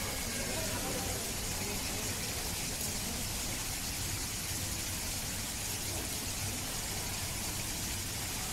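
Steady background hiss with a low hum, and faint indistinct voices now and then.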